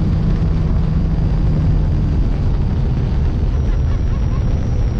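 Steady rush and buffeting of wind on the microphone of a bass boat running at speed, over the drone of its Mercury outboard motor.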